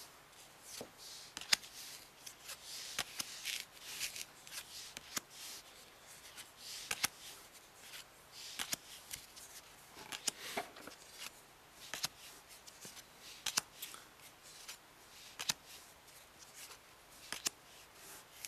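Bicycle Earthquake playing cards dealt one at a time onto a pile on a cloth mat: each card slides off with a soft rustle and lands with a sharp click, roughly every one and a half to two seconds.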